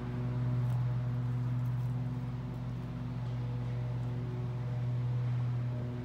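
A steady low mechanical hum with a few fainter overtones, unchanging throughout.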